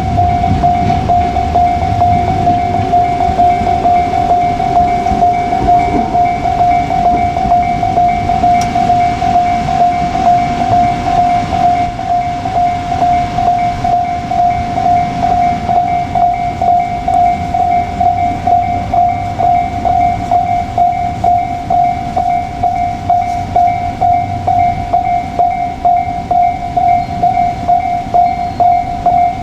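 Level-crossing warning bell ringing in even, rapid pulses throughout, the loudest sound, over the low rumble of a JR Kyushu 787-series express train running past the crossing, which is heavier in the first half and then eases.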